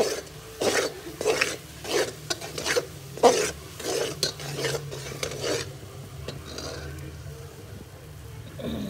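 Metal ladle stirring and scraping thick chana dal halwa against the sides of a steel pot as it roasts, about two strokes a second. The strokes stop a little after halfway.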